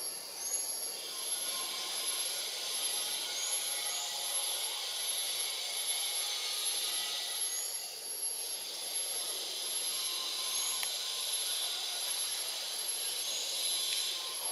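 Steady high-pitched insect chorus of the tropical forest, with a thin constant whine on top, swelling and easing over several seconds. A few brief chirps are scattered through it.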